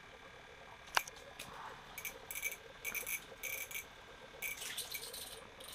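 Small spinning reel on an ice-fishing rod being cranked in a series of short bursts, a hooked panfish being reeled up. A sharp click about a second in.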